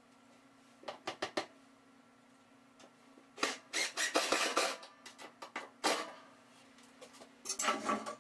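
Metal hardware being handled and fitted against a wooden stud: a quick run of clicks, then bursts of scraping and clinking, over a steady low hum.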